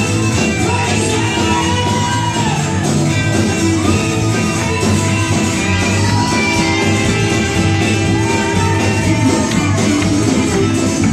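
Live church praise band playing upbeat gospel music on electric guitars and drums, with voices singing over it.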